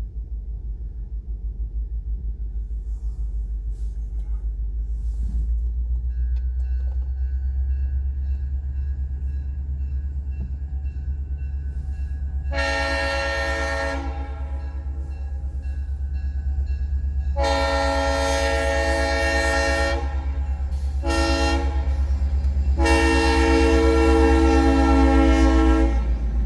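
Locomotive air horn sounding the grade-crossing signal, two long blasts, a short one and a long one, over a steady low rumble that grows louder as the train approaches.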